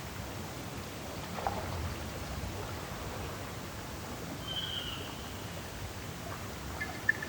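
Quiet outdoor morning ambience: a steady soft hiss, with a small bird giving a single short whistle about four and a half seconds in and a rapid run of chirps starting near the end.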